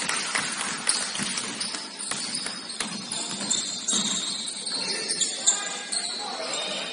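Indoor basketball game sounds: a ball bouncing on the court with many short knocks, players' voices calling out, and music playing in the hall.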